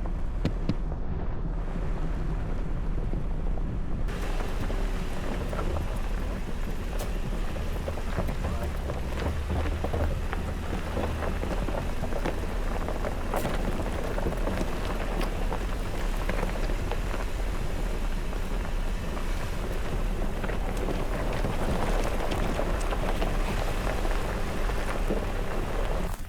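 Jeep Gladiator driving a rough dirt trail: a steady low engine and road rumble, joined about four seconds in by a dense crackle of gravel and stones under the tyres.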